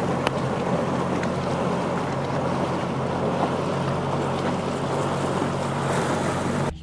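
Bass boat under way with its outboard motor running steadily, a low engine hum under the rush of wind and water past the hull. It cuts off suddenly just before the end.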